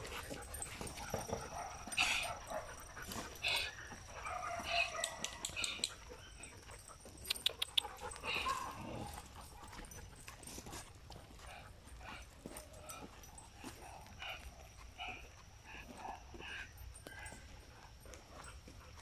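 Dogs on an off-leash walk: scattered short whines and yips, with clicks and scuffs of feet and paws on asphalt.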